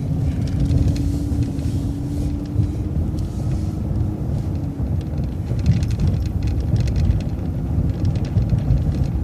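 City transit bus under way: a steady low rumble of engine and road noise. A faint steady hum runs through the first few seconds, and light rattles come through the middle and later part.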